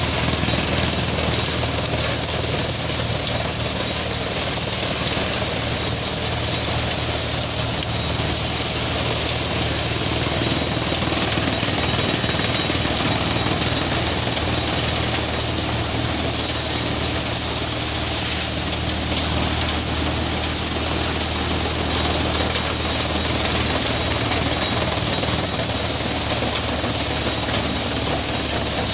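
Maize thresher running steadily under load while dried maize plants are fed into it: a constant mechanical drone with a low hum and a bright rushing noise from the threshing drum.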